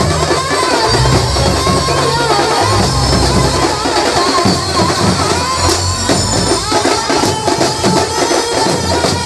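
Indian banjo street band playing a Marathi lavani tune: a banjo carries a wavering, ornamented melody over pounding drums and quick jingling percussion.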